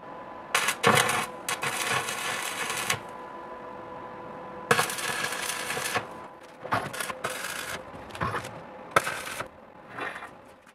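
Electric arc welding on a steel spit rod: crackling and sputtering in several bursts of one to two seconds, with a steady hum beneath for the first six seconds.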